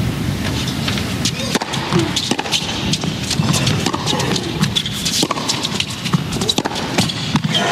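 Tennis rally on an indoor hard court: rackets strike the ball back and forth in a string of sharp hits, over a steady background of arena crowd noise.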